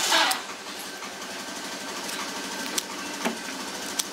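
Several short, sharp clicks as a quarter-inch jack plug is pushed into and pulled out of the Korg Pitchblack Mini tuner's input jack, testing the fit of the reseated, not-yet-soldered socket. A steady mechanical hum runs underneath.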